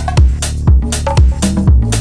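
Background electronic dance music with a steady kick drum at about two beats a second, cymbal hits and a held bass line.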